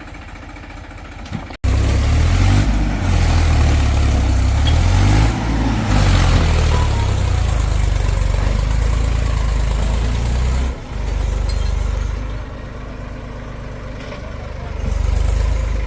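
Heavy diesel machinery engine running, low and loud. After an abrupt cut about a second and a half in, it dips near the ten-second mark and swells again near the end.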